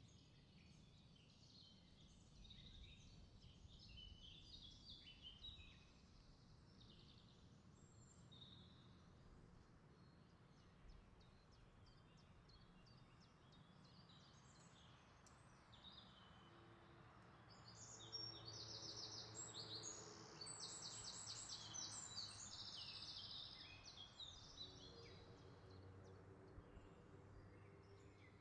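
Faint birds chirping in the background over low room noise, with a burst of rapid trills from about 18 to 24 seconds in.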